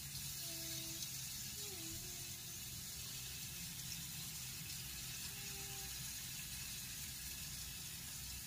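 Marinated chicken pieces sizzling in a frying pan over a gas burner, a steady hiss over a low, even hum.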